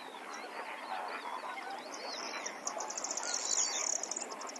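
A flock of waterbirds calling together, many short chirps, whistles and honks overlapping. About two seconds in, a high, rapid trill joins the chorus.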